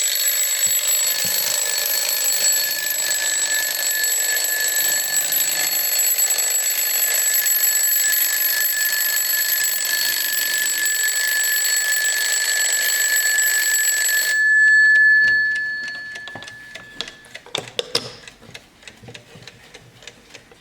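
Bell alarm of an antique Junghans mantel clock ringing continuously. About fourteen seconds in the ringing stops, the bell rings out louder for a moment and fades over a couple of seconds, and the clock's ticking is heard, with a few clicks.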